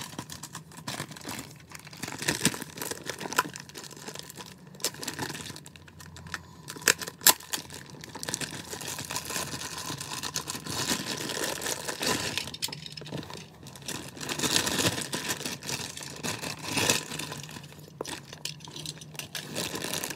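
Plastic wrapping crinkling and rustling, with scattered clicks and a sharp knock about seven seconds in, as a toy 100 Series Shinkansen car is unwrapped from its packaging.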